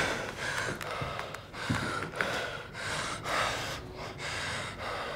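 A man breathing heavily in quick, audible gasps, one about every half second.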